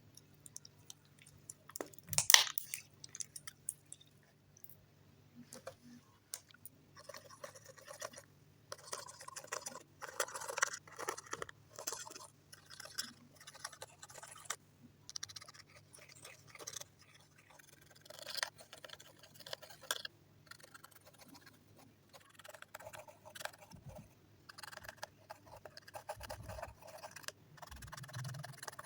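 Slime being squished and stretched by hand, giving irregular sticky clicking and popping crackles, with one louder snap about two seconds in.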